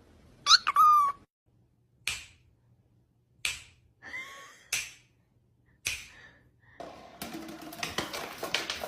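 A small animal's short, high-pitched squeaky call, followed by four sharp clicks or taps about a second apart. A busier jumble of sounds starts near the end.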